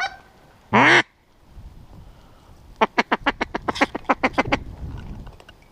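Mallard duck call blown by a hunter: one loud quack about a second in, then a rapid run of about a dozen quacks, a greeting or comeback call to draw ducks in.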